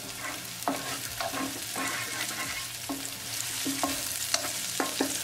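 Cumin seeds, ginger, garlic and chopped green chili sizzling in hot olive oil in a frying pan, stirred with a wooden spatula that scrapes and knocks against the pan several times.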